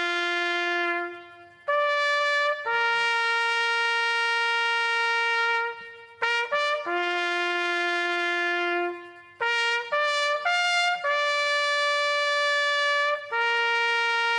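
A trumpet sounding a slow ceremonial call of long held notes, with a few short quick notes between them, played as a flag is lowered to half-mast.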